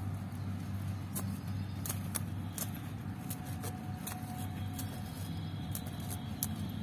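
Scattered light clicks and crackles of a clear plastic grafting strip being stretched and wound tightly around a mango graft union, over a steady low background hum.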